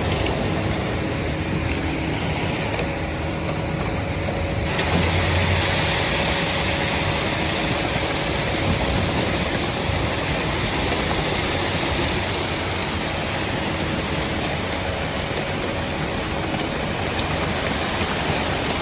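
Concrete mixer truck's engine running with a steady rush of noise while the drum discharges leftover concrete; about five seconds in the rush grows louder and brighter.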